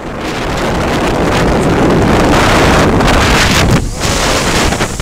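Gale-force wind buffeting the microphone over heavy surf breaking and splashing against breakwater rocks. The loud rushing noise swells to its strongest about three seconds in, drops out for a moment just before four seconds, then picks up again.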